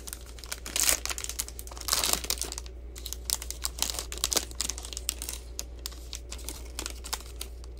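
Foil wrapper of a trading card pack being torn open and crumpled by hand: a steady run of crinkles and small crackles, with louder bursts about one and two seconds in.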